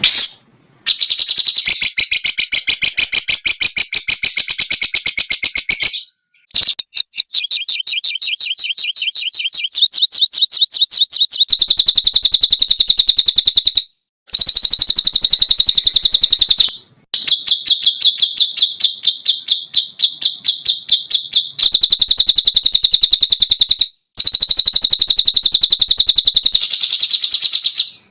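Songbird song played as a tutor recording for caged birds: long phrases of rapid, high-pitched repeated notes, a fast trilling chatter that shifts pitch between phrases and breaks off abruptly in short gaps four times.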